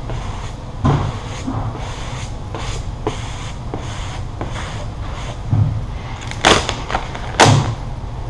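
A squeegee scraping over vinyl wrap film being laid on a car hood: soft repeated strokes with four louder swishes, three of them near the end, over a steady low hum.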